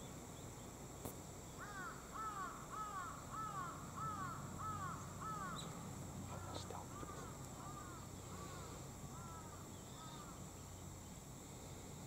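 A crow cawing in a quick series of about eight calls, two a second, then a fainter run of about six more.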